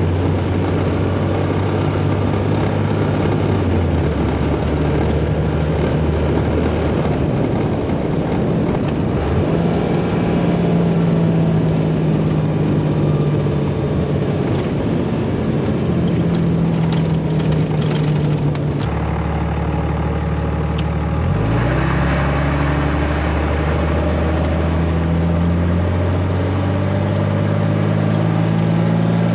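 Stock 24-valve VP44 Cummins 5.9 L straight-six turbo-diesel under way, its exhaust running through a factory-size pipe with an aftermarket muffler and turndown. The low drone steps down in pitch about four seconds in, shifts a few more times, and climbs quickly a little past twenty seconds, over the rumble of tyres on gravel.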